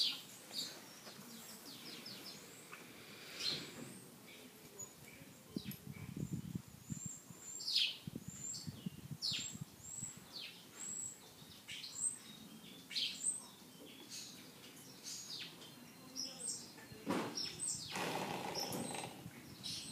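Small birds chirping in the barn: a run of short, high, downward-sweeping chirps about once a second. A brief, louder rustling noise comes near the end.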